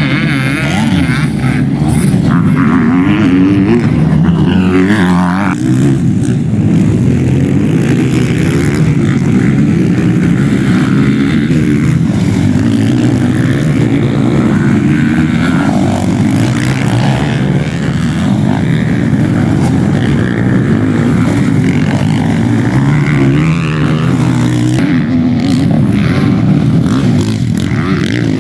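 Motocross dirt bike engines racing on a dirt track, several bikes at once, revving up and down continuously as the riders accelerate and back off.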